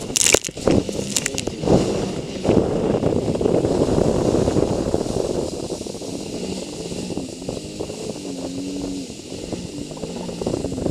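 Sea-Doo personal watercraft running at speed, its engine and jet drive under a steady rush of water and wind. In the first second or two, spray splashes over the handlebars in a burst of sharp crackling hits.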